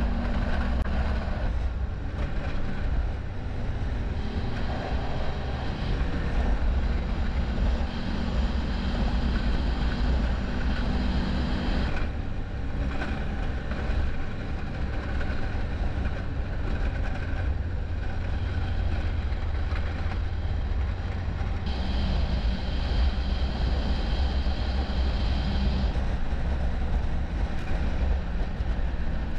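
Snowmobile engine running at speed, heard from the sled's handlebars, with a heavy wind rumble on the microphone. The sound changes character twice, about twelve and twenty-two seconds in.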